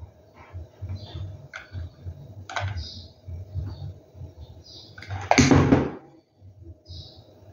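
Hot glue gun being worked against small stones: a few light clicks and taps, then a louder clatter about five seconds in as the gun is set down on the table.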